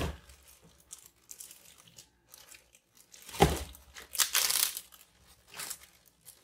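Plastic zip-top bag crinkling and rustling as it is handled and pulled open, with one thump about three and a half seconds in as the bag of bottles is set down on a cutting board.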